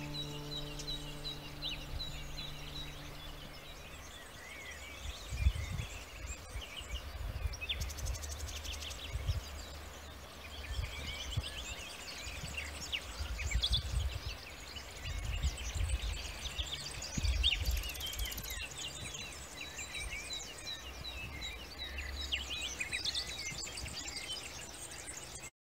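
Several small songbirds chirping and trilling at once, with one bird repeating a short high note in a steady series near the start and again later. A gusty low rumble of wind on the microphone comes and goes underneath.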